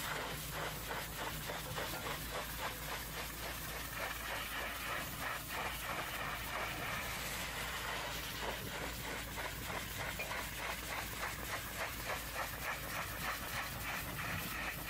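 Hot-water pressure washer jet spraying against the side panels of a box truck's cargo body: a steady, hard hiss of spray with a fast flutter in it.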